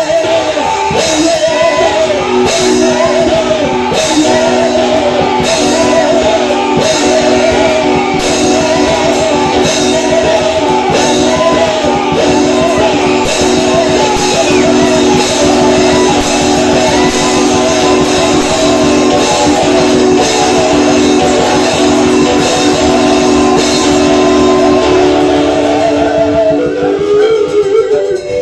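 Church band music: a guitar playing quick melodic runs over long held chords, with a regular beat. The held chords shift near the end.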